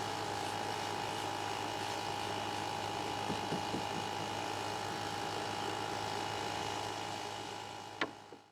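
Steady hum of a small electric motor with a high, even whine over it, fading out near the end just after a single click.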